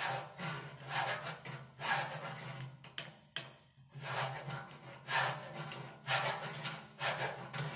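Hand file scraping on welded steel sheet, about one stroke a second, squaring off the welded corner of a steel chiminea's ash pan cavity.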